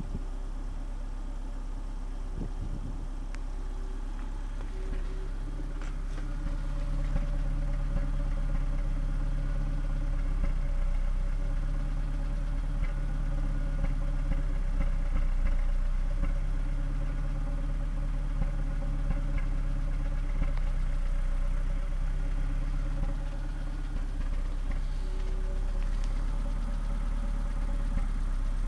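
Volvo S40's 1.8-litre GDI four-cylinder petrol engine idling steadily, heard right at the tailpipe, a little louder from about six seconds in.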